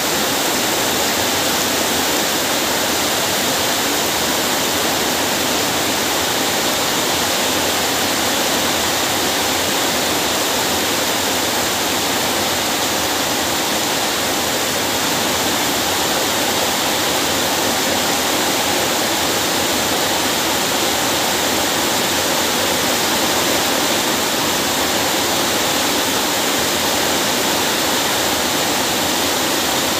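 Heavy rain falling steadily, a dense even hiss with no breaks or single events.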